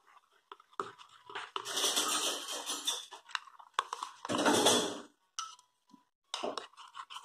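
A spoon stirring a thick, creamy sauce with chopped chives in a bowl. It makes wet scraping and squelching sounds in two longer stretches, about two seconds in and again near four and a half seconds, with light clicks of the spoon against the bowl in between.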